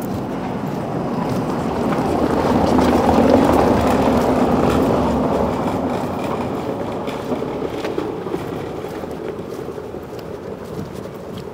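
A motor vehicle passing by on the street: a rushing engine and tyre noise that grows to its loudest about three seconds in, then slowly fades away.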